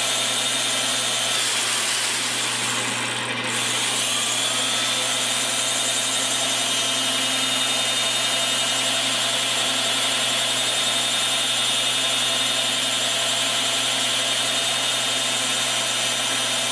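High-speed rotary tool with an abrasive cutoff wheel, rigged as a tool post grinder, running with a steady high whine as it grinds through a hardened steel pin in the lathe. About two seconds in, its pitch sags and then climbs back up.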